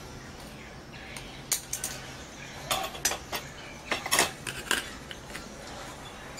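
Sharp metallic clicks and clinks from thin abrasive cut-off discs being handled and fitted onto the mandrel of a handheld grinder, a quick scatter of ticks between about one and five seconds in; the grinder is not running.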